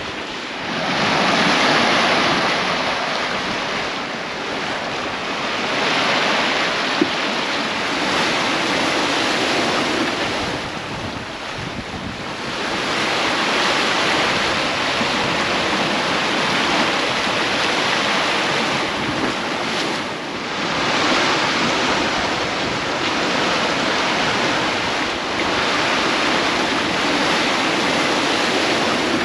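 Water rushing and splashing past the hulls and churning in the wake of a sailing catamaran under way, mixed with wind buffeting the microphone. The rush swells and eases in surges every few seconds.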